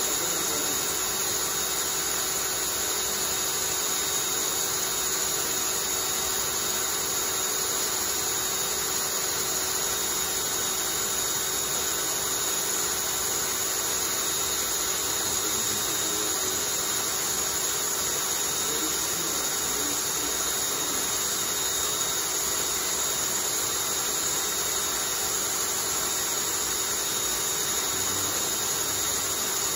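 Cordless drill running at a steady speed, spinning a homemade wooden centrifuge rotor: an even whir with faint steady whining tones that does not change throughout.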